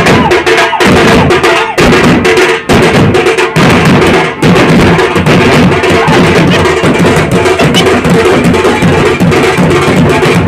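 Large double-headed street drums beaten loudly in a fast rhythm. The strokes come sharp and separate for the first four seconds or so, then run together into a dense, continuous pounding.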